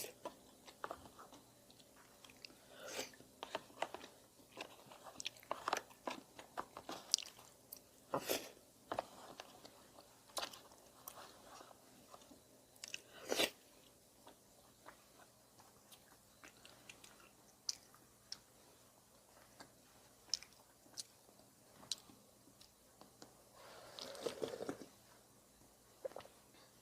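Close-miked mouth sounds of eating udon with rice cake: chewing and biting with sharp, wet clicks, busier in the first half. About 24 seconds in, one longer, noisier mouth sound.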